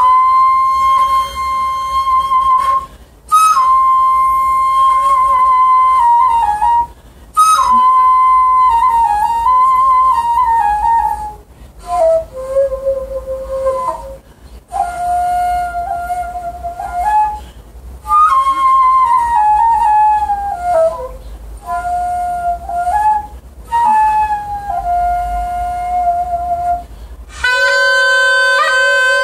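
Daegeum, the Korean bamboo transverse flute, playing a slow solo melody of long held notes that slide downward, phrased with short breath pauses. Near the end a taepyeongso shawm comes in with a loud, bright reedy tone.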